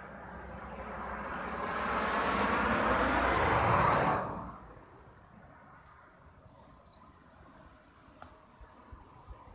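A vehicle passing: its noise swells over about four seconds and cuts off sharply. Short, high-pitched chirps in quick series come during and after it.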